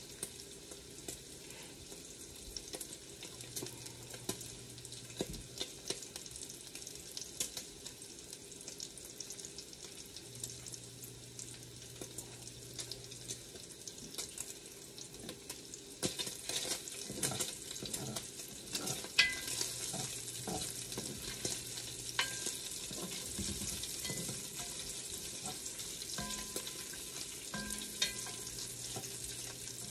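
Bacon sizzling and crackling as it fries in an enameled cast iron Dutch oven, the crackle getting busier about halfway through. Near the end a utensil stirs it, with a few sharp knocks against the pot.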